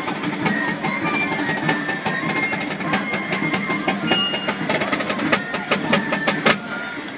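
Basque street band of txistu pipes and drums playing a marching tune: a shrill pipe melody over steady drumbeats, with a thick run of sharp drum strokes near the end.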